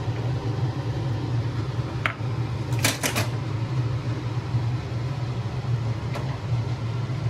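A steady low mechanical hum, like a running kitchen fan or appliance, with a few sharp clinks and clatter about two and three seconds in as the serving plate and spoon are handled.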